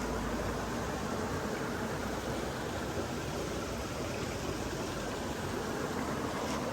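Steady rushing of flowing water, an even, unbroken wash of noise.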